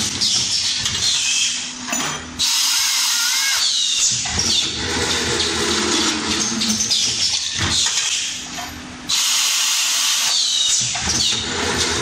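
Automatic snap hook milling and bending machine running through its cycle: milling cutters whining and screeching on the metal with a pitch that bends up and down, over a steady mechanical clatter. Twice, about seven seconds apart, a loud hissing rush lasts about a second and a half as the cycle repeats.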